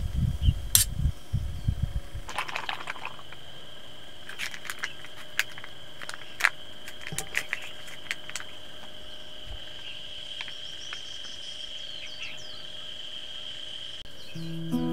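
Insects droning steadily on one high pitch, swelling a little near the end, with scattered light clicks and taps. A low rumbling rustle fills the first two seconds.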